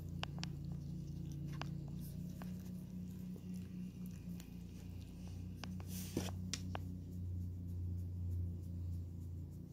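Pomeranian licking and nibbling a person's fingers: scattered soft wet clicks and smacks of its mouth, over a steady low hum.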